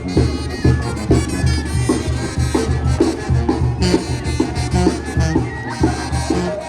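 Music with a steady drum beat, about two beats a second, under a held melody.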